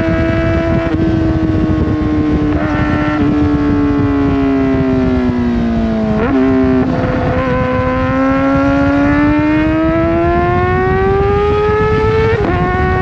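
Kawasaki Ninja ZX-4RR's inline-four engine through a full aftermarket exhaust. Its pitch falls slowly for about six seconds as the bike slows, gives a quick blip around the downshift, then climbs steadily under acceleration to an upshift near the end, over heavy wind rush.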